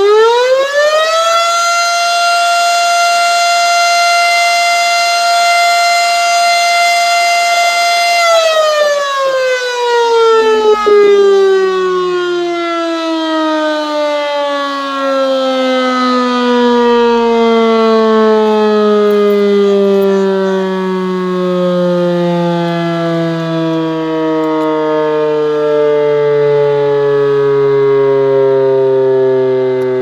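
Fire station's pole-mounted outdoor warning siren sounding its scheduled 9 PM test. It winds up fast to a steady high wail, holds it for about eight seconds, then winds down slowly, the pitch falling steadily and still sounding at the end.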